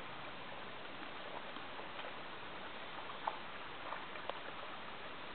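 Steady hiss of a small stream's running water, with a few faint short clicks.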